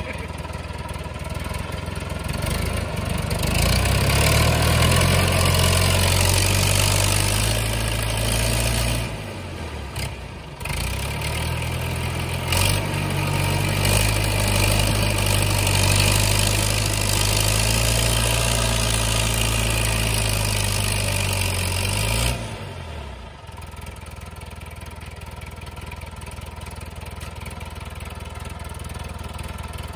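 David Brown 995 tractor's diesel engine working at high revs under load as it hauls a heavily loaded firewood trailer over soft dirt. Its revs climb about three seconds in, dip briefly around ten seconds, then drop back to idle a little after twenty seconds.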